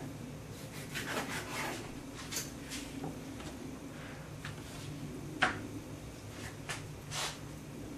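Kitchen knife cutting through raw pork on a plastic cutting board: soft scrapes and light taps of the blade, with one sharper knock of the blade on the board about five and a half seconds in.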